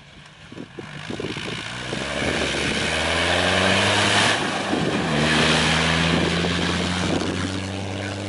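A Toyota Land Cruiser 4x4's engine pulling hard as it drives past close by. The sound builds from about a second in, the pitch drops as the vehicle passes, and the engine then runs on steadily as it moves away.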